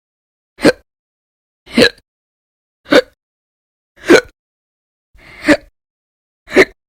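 A woman hiccuping loudly six times in a row, about one hiccup a second, with silence between them.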